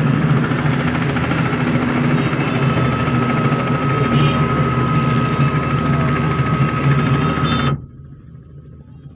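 Helicopter rotor and engine running loud and steady, with a low throbbing hum; the noise cuts off suddenly near the end, leaving only a faint background hum.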